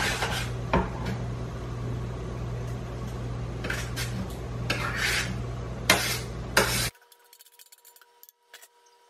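Metal utensil scraping and clinking against a metal baking pan and an enamelled cast-iron Dutch oven as shredded pork is scraped into the pot, with a couple of sharp knocks of metal on metal over a steady low hum. The sound cuts off abruptly about seven seconds in.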